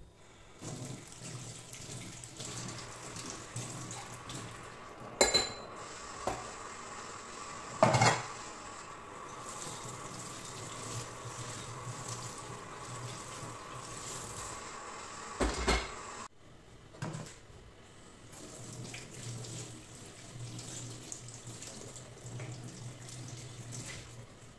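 Kitchen tap running into a stainless-steel sink while white ceramic plates are rinsed by hand, with three loud knocks of crockery about five, eight and fifteen seconds in. The running water gets quieter about two-thirds of the way through.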